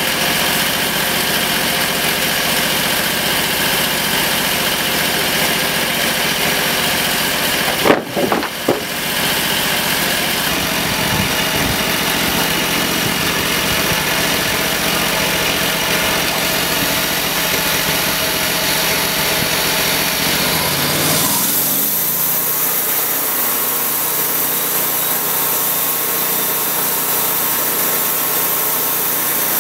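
The homemade bandsaw sawmill's 22-horsepower V-twin engine runs steadily with the blade turning, before the cut begins. There is a brief clatter about eight seconds in, and about two-thirds of the way through the low rumble drops away and a hiss comes up.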